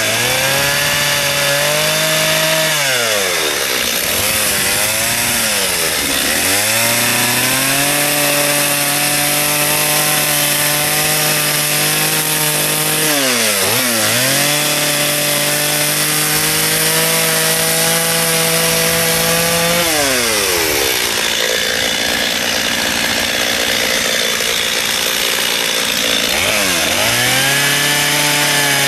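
Two-stroke chainsaw running at high revs as it cuts into a wooden plank. The engine note drops and revs back up about five times as the throttle is eased and opened between cuts.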